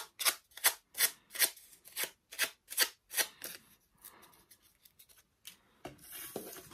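Scissors snipping through doublette crepe paper while cutting out a rose petal, about ten quick snips in a steady rhythm, then softer paper rustling as the cut petal is handled.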